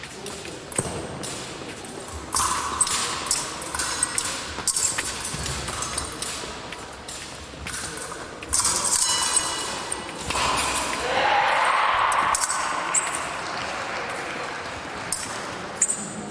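Steel épée blades striking each other in quick, irregular metallic pings, with thuds of footwork on the piste.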